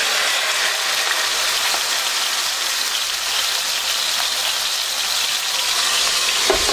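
Corned beef brisket searing in hot peanut oil in a skillet: a steady, even sizzle.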